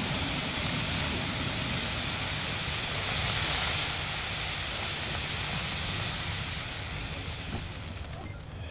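Firework fountains on a rotating sun wheel, brocade-to-titanium-silver transformation fountains, hissing steadily. The hiss is strongest a few seconds in and dies away near the end as the fountains burn out.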